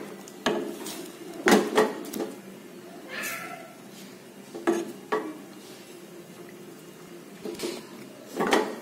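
A spatula stirring fish in coconut-milk broth in a stainless steel pot, knocking and scraping against the pot in irregular clatters.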